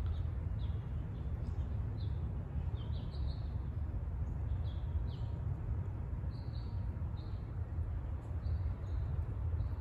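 Ducklings peeping: short, high chirps repeating irregularly, several a second, over a steady low rumble.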